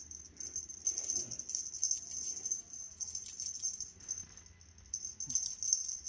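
Light, continuous jingling rattle of a cat feather wand toy being waved and batted at by kittens.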